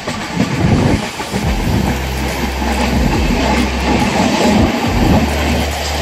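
Rajdhani Express passenger train running past on the rails, a dense loud rush of wheel and track noise with irregular low knocks. A steady low hum joins it about a second and a half in.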